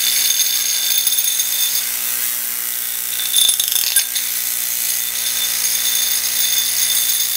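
AC electromagnet humming under power while an aluminum hard drive platter balanced on a nail on top of it is pushed around by eddy currents, buzzing and chattering against the nail in a loud, steady high-pitched rattle over the low hum. A couple of knocks come about halfway through.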